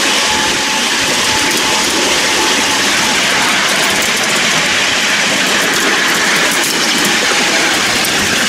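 Miniature electric locomotive and its passenger carriages running along the track: steady rolling rumble and rattle of the small wheels on the rails, with a few light clicks.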